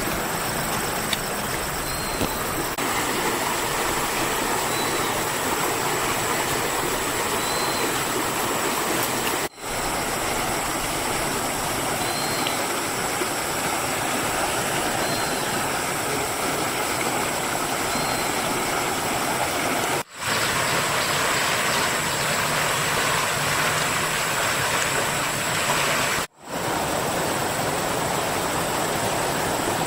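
Steady rush of a fast-flowing, swollen muddy river, an even noise without a beat, broken by three brief dropouts.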